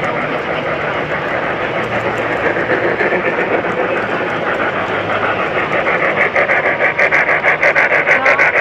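Large-scale model steam locomotive's sound effect chuffing over a steady rush of noise. About six seconds in, the chuffs turn into a loud, quick, even beat.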